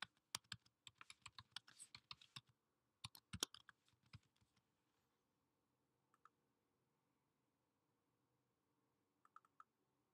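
Typing on a computer keyboard: a quick run of keystrokes for about two and a half seconds and another short run around three seconds in, then a few single clicks, with a small group of clicks near the end.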